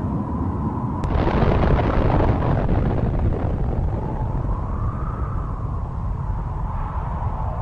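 A large explosion's deep, continuous rumble, becoming louder and brighter about a second in and then holding steady. A faint steady tone sits underneath.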